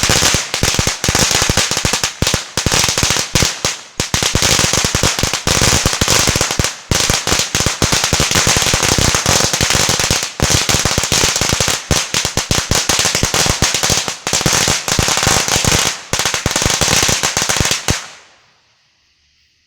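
A long string of about 2000 firecrackers going off in a rapid, continuous rattle of bangs, which stops suddenly about eighteen seconds in.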